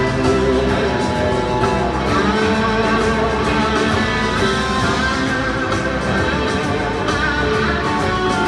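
Live rock band playing an extended instrumental jam, with two electric guitars taking lead lines over the band, heard from the audience in an arena.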